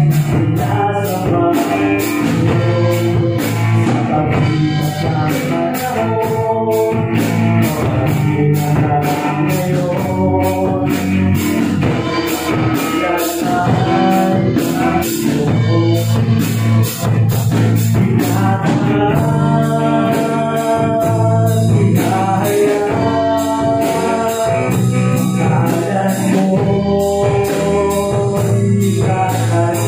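Live worship band playing a Tagalog praise song: a male lead voice singing over acoustic guitar, bass guitar and a drum kit.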